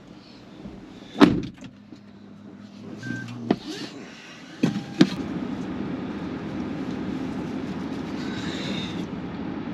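A few sharp knocks and clicks, the loudest about a second in, then a steady low rumble from about five seconds in.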